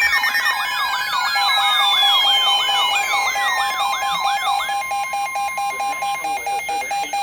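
Several electronic siren and alert tones layered together: a fast wailing siren sweeping up and down about two to three times a second, long falling tones, and a steady tone over rapid pulsed beeping. The wail stops about two-thirds of the way through, leaving the beeping.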